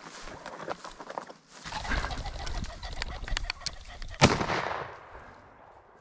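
A rooster pheasant flushing, wings beating and cackling, then a single shotgun blast about four seconds in, loud with a short echoing tail, that brings the bird down.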